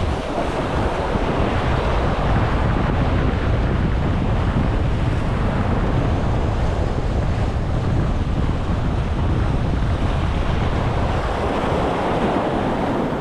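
Sea waves washing and breaking against the concrete blocks of a breakwater, with wind buffeting the microphone in a steady low rumble.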